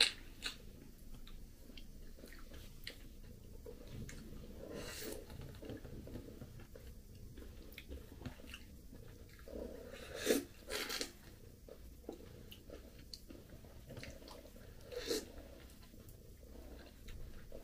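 Close mouth sounds of someone eating a soft, ripe persimmon: quiet wet biting and chewing of the juicy flesh. A few short, louder wet sounds come at about 5, 10 and 15 seconds in.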